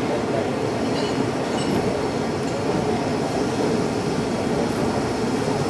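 BR Fairburn 2-6-4 tank steam locomotive moving slowly along the platform, a steady running noise of the engine and its wheels on the rails, with a few faint high squeaks in the first couple of seconds.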